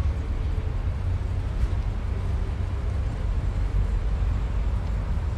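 Outdoor urban background noise: a steady, heavy low rumble with a faint hiss above it.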